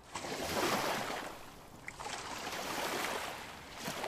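Wind gusting, a rushing noise that swells and fades twice.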